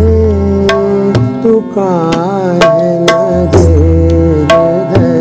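Tabla and harmonium playing an instrumental passage of a bhajan: regular sharp tabla strokes over held harmonium notes, with a deep bass drum note swelling and holding for about a second twice.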